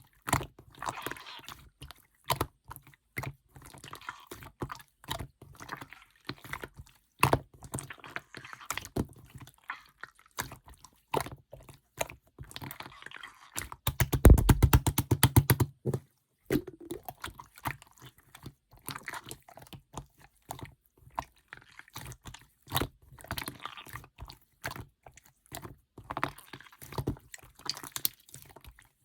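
Clear slime being kneaded and pressed by hand, making squishy sounds and small sharp pops and clicks. About halfway through comes a fast, loud run of pops, roughly ten a second, for about two seconds.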